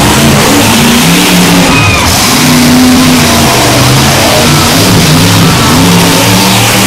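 Monster truck engine revving hard and unevenly, its pitch rising and falling, very loud and overloading the recording.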